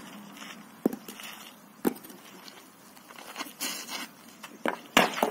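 Sharp wooden clacks from a game of Catalan bitlles: wooden throwing sticks knocking against the wooden pins and each other. There are single knocks about a second apart, then a scatter of lighter knocks, and two loud clacks close together near the end, the second the loudest.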